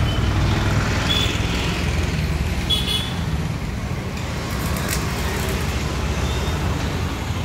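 Steady low rumble of a road vehicle in motion amid traffic, with a few brief high chirps about one and three seconds in.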